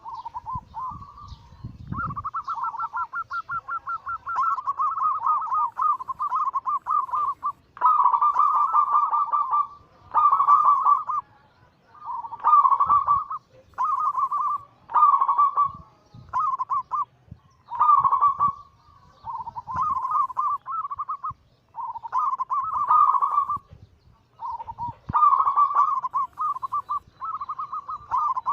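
Zebra doves (perkutut) cooing: rapid trilled phrases, nearly unbroken for the first several seconds, then repeated every second or two with short gaps between.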